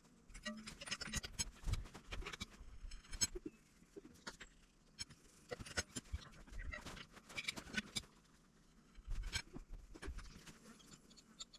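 Irregular light metallic clicks, taps and scrapes of steel bolts being handled and turned by hand in a tractor's wheel rim.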